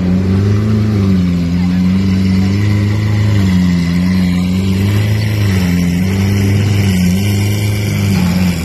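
A sports car's engine running at low revs, a loud steady drone whose pitch rises and falls gently every second or so.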